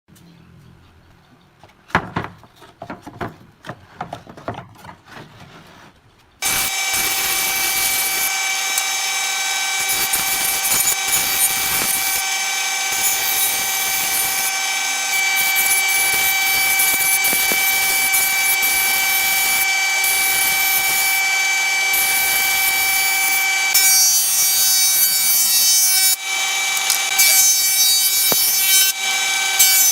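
A few light knocks and handling sounds, then about six seconds in an electric power saw comes in abruptly and runs steadily through wood, a motor whine over the hiss of the cut.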